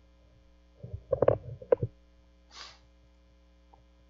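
Steady electrical mains hum on the recording. About a second in there is a brief, fairly loud vocal noise, and a soft breath follows a second later.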